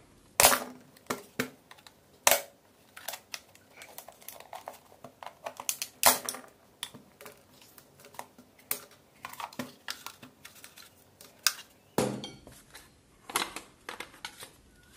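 Irregular plastic clicks, taps and snaps as a screwdriver pries apart the snap-fit plastic housing of a Bluetooth speaker, with a few louder cracks among the lighter ticks.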